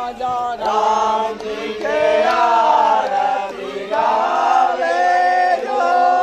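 Several voices chanting Hindu mantras together in long held notes, the pitch shifting every second or so with short breaths between phrases.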